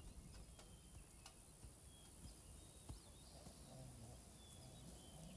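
Near silence: quiet rural ambience with a few faint, scattered bird chirps.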